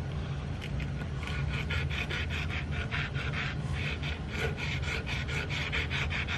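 A strip of sandpaper pulled back and forth around a percussion rifle's cap nipple, shoe-shine style, in quick, even scraping strokes, several a second. The nipple is being sanded down a little so the percussion caps fit snugly and fire every time.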